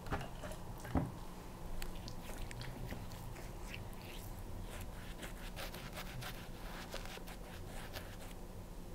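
Faint scratchy crackling of stubble being rubbed on a lathered face during a wet shave, a scatter of small clicks, with one sharp knock about a second in.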